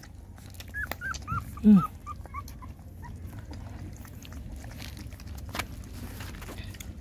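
Young puppies whimpering: a run of about eight short, high-pitched cries in the first three seconds, with one louder, lower cry falling in pitch among them. A few faint clicks follow.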